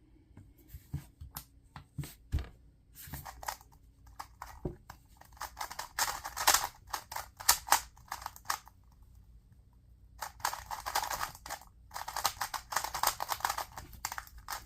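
A 2x2 speed cube being turned by hand: scattered plastic clicks at first, then two long runs of rapid clicking and clacking as the layers are turned fast, with a short pause between them.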